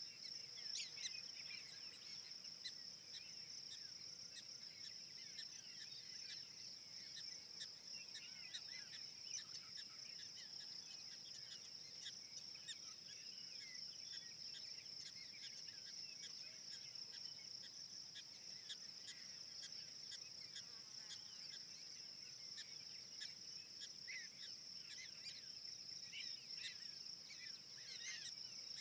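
Steady high-pitched insect chorus, with many short bird chirps and calls scattered over it.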